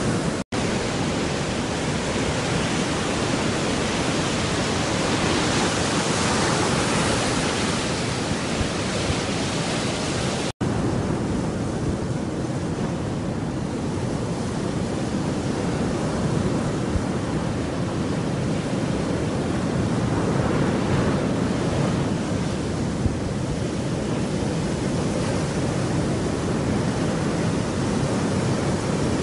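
Steady surf washing on a beach, an even rushing noise that cuts out for an instant twice, about half a second in and about ten seconds in.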